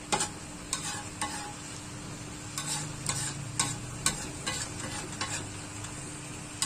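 A metal spatula scraping and knocking against a wok in irregular strokes as milkfish in a thick red spice paste is stirred and turned, over a steady frying sizzle.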